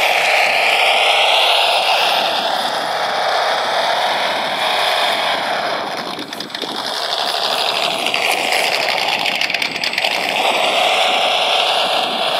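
Simulated truck engine sound from a PRC QX-4 mini rock crawler's onboard sound unit, played through its small speaker, so thin and without bass. The pitch rises and falls with the throttle as the crawler works over rocks, dipping lowest about ten seconds in before climbing again.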